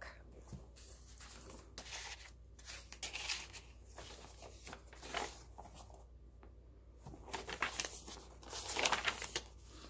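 Paper rustling and sliding as the pages of a handmade journal are handled: a card tag slides out of a paper page pocket and pages are turned. There is a series of soft swishes, busier near the end.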